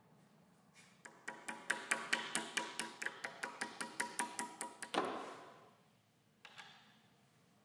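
A mallet tapping a metal Domino knockdown connector into a mortise in a walnut board: about twenty quick, light taps, roughly five a second, ending with one harder strike. A couple of faint clicks follow near the end.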